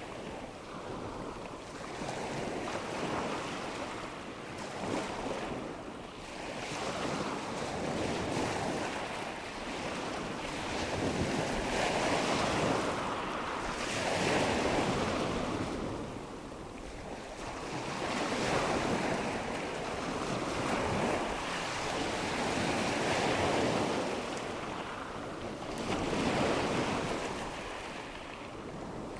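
Ocean waves washing onto a shore, a steady rushing surf that swells and recedes every three to four seconds.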